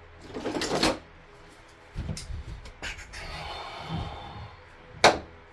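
Tools being handled and rummaged in a toolbox: a scraping rustle, a knock, a longer scrape, then one sharp loud clack near the end.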